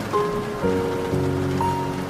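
Steady rain hiss under slow, gentle music, its held notes entering one after another about every half second.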